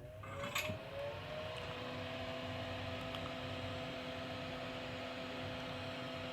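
Small solder-fume extractor fan switched on, its motor whirring up to speed over the first second or two, then running steadily. A light knock sounds about half a second in.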